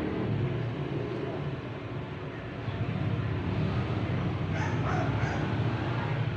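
A motor vehicle engine running with a steady low rumble. Three short dog yips come about four and a half seconds in.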